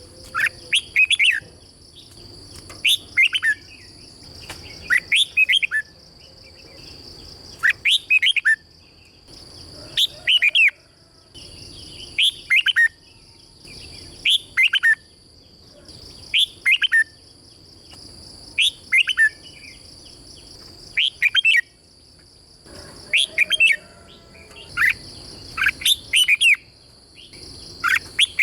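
Red-whiskered bulbul singing short, clear phrases of quick sweeping notes, one phrase about every two seconds, over a steady high-pitched whine.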